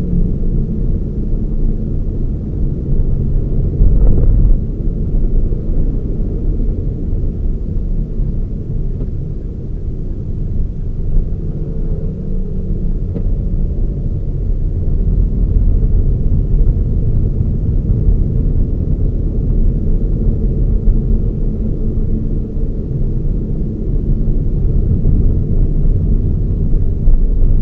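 Toyota Raize GR on the move: a steady low rumble of engine and tyre noise, with a brief louder bump about four seconds in.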